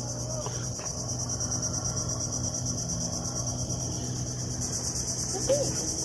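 Steady high-pitched insect chorus, a continuous rapid trill.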